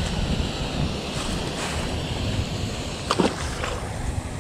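Wind buffeting the microphone: a steady low rumble. A short falling sound cuts through it about three seconds in.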